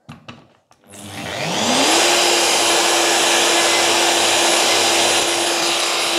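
Plunge router switched on about a second in, its whine rising for about a second to a steady full-speed run, for a final skimming pass to open up a tight dog hole.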